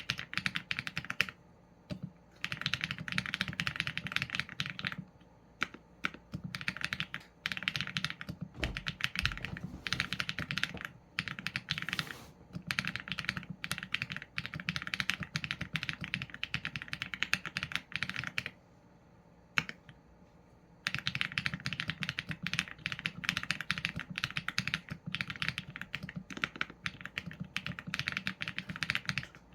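Typing on a Qsenn A75 mechanical keyboard with Leobog Graywood v4 linear switches and PBT keycaps: keys clacking in quick runs, broken by short pauses. The longest pause, about two and a half seconds, comes roughly two-thirds of the way through.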